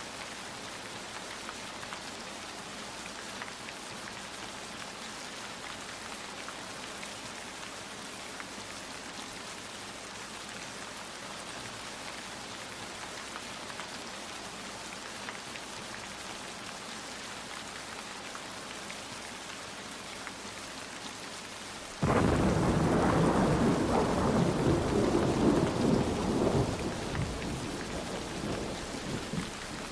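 Steady rain falling, then about three-quarters of the way through a loud clap of thunder breaks in suddenly and rumbles, dying away over several seconds.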